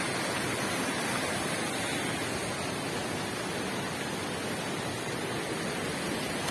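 Steady rush of flowing water from a hot spring stream.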